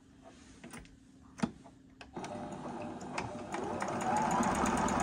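Juki HZL-009 computerised sewing machine stitching a picot stitch. It starts about two seconds in, after a few clicks, then runs fast and picks up speed near the end.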